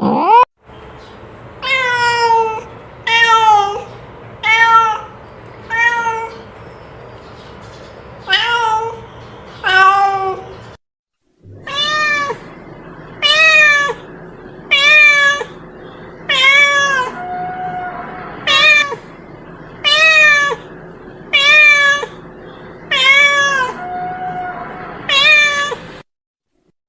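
Domestic cat meowing loudly over and over, about fifteen calls each roughly a second and a half apart, each meow rising then falling in pitch, with a short break partway through.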